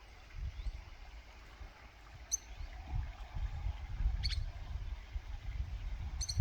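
A bird giving short, sharp chirps, one roughly every two seconds, over a steady low rumble.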